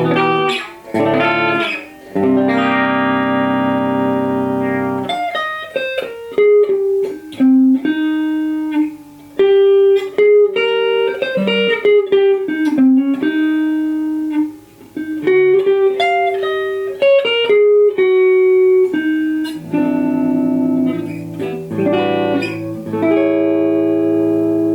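Replica Gibson Les Paul electric guitar being played. Held chords ring about two seconds in and again near the end. Between them runs a single-note lead line, with some notes bent up and down in pitch.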